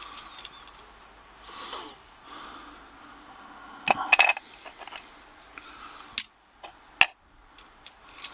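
Small clicks and taps of a padlock and hand tools being handled while the lock is taken apart to reach its screws, with a few sharp clicks about four and seven seconds in and a couple of faint squeaks in the first two seconds.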